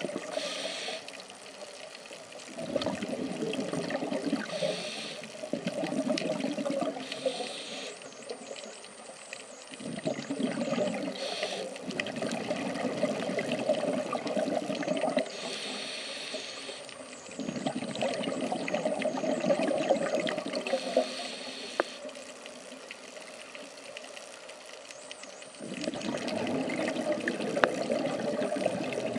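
Scuba diver's regulator breathing underwater: slow breaths, each exhale a burble of bubbles lasting several seconds, about four in all, with a fainter hiss of inhaling in the quieter gaps between them.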